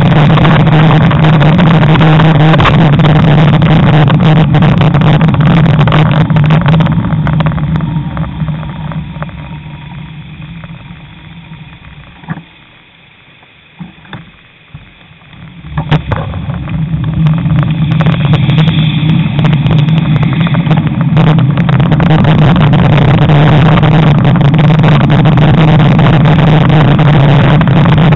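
Wind buffeting a bicycle camera's microphone while riding, a loud steady rush with a low hum. It fades about eight seconds in as the bike slows, leaving a quiet stretch with a few clicks, and comes back from about sixteen seconds in as riding picks up again.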